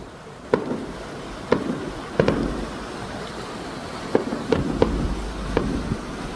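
Fireworks fired from a cruise ship bursting in a run of sharp bangs, about eight at irregular intervals, each trailing off in a short rumbling echo.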